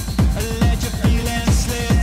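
Electronic dance music with a steady kick drum at about three beats a second; synth notes come in about half a second in.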